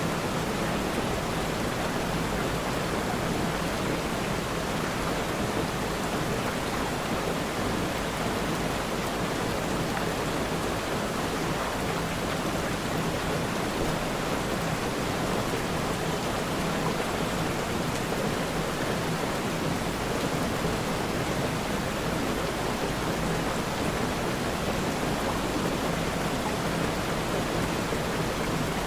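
Steady, even hiss of rainfall with no distinct drops or thunder standing out.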